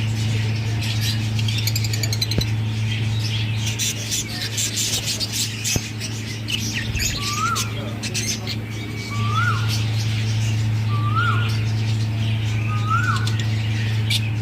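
Parrots chirping and chattering, joined from about halfway by one bird repeating a short rising-and-falling call roughly every two seconds. A steady low hum runs underneath.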